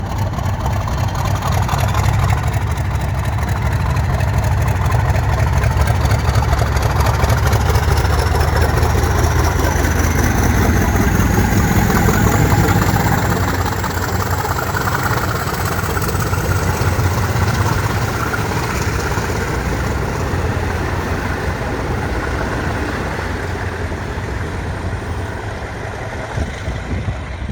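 Class 50 diesel locomotive's English Electric 16CSVT V16 engine working hard as it pulls away, with a deep steady rumble. A high whine rises in pitch over the first half and then holds steady.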